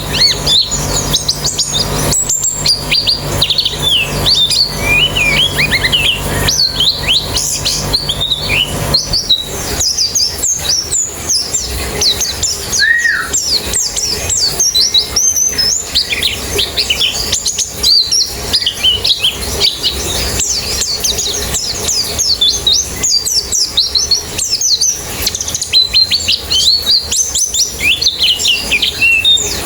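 A colony of white-eyes (pleci) singing over one another: a dense, unbroken stream of rapid high chirps and twittering phrases. A low steady hum underneath stops about nine seconds in.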